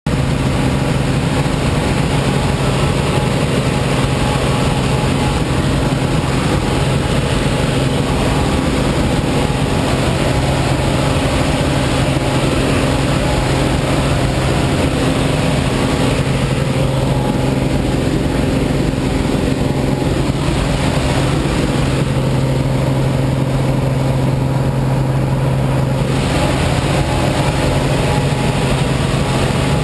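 Light aircraft's piston engine and propeller droning steadily, heard from inside the cabin, with a strong low hum.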